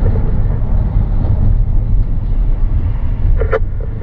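Steady low road and engine rumble heard inside the cabin of a vehicle driving at freeway speed. A brief, sharp, higher sound cuts in about three and a half seconds in.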